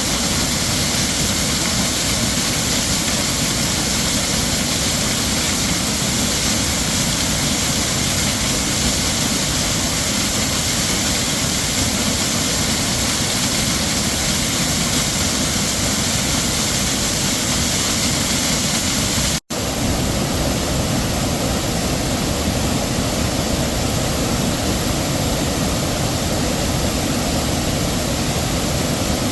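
Heavy waterfall: a steady rush of falling water. About two-thirds of the way through it cuts out for an instant and comes back with a slightly different tone.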